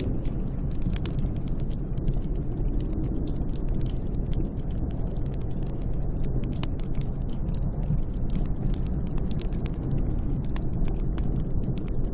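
Snowstorm wind blowing steadily as a low rumble, with a faint wavering moan now and then and scattered light clicks.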